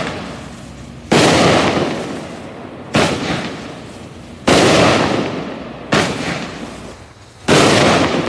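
Fox Fireworks 'Mythical Creature' consumer firework firing shot after shot: five loud bangs about a second and a half apart, each trailing off over roughly a second before the next.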